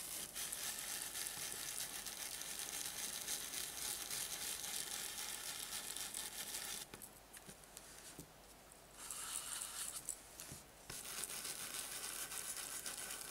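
Stiff-bristle stencil brush rubbed in small circles over a plastic stencil on a painted wooden board: a steady, dry brushing rustle. It stops twice for a second or two about halfway through, then carries on.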